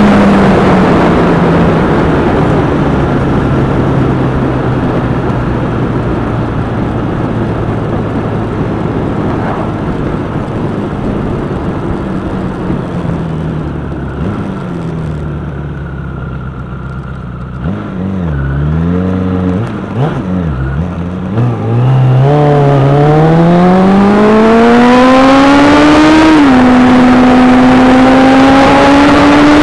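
Motorcycle engine recorded on board with wind rushing over the microphone. The revs fall and hold low while the bike slows, dip and waver at low speed, then climb steeply as it accelerates hard, with one upshift near the end before the revs rise again.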